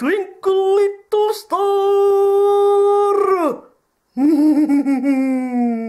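A voice howling in drawn-out notes: a few short notes, one sliding up, then one long steady note held about two seconds, and after a short pause a lower wavering note that sinks slowly.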